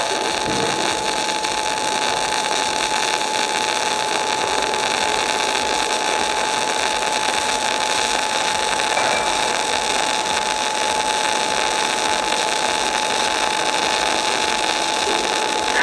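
Arc of a 500-amp MIG/MAG semiautomatic welder making a continuous bead: a steady, even hiss and crackle that does not break. A thin steady high tone runs underneath.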